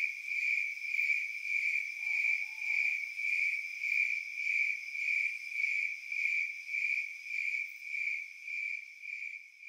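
Crickets chirping: one high, even tone pulsing about twice a second, fading out near the end.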